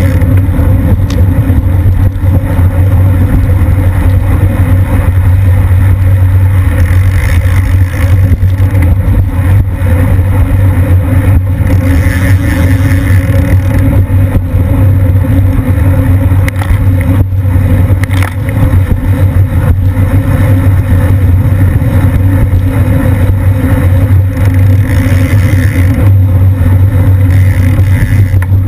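Wind buffeting the microphone of a bicycle-mounted camera at racing speed, about 20 to 25 mph: a loud, steady low rumble.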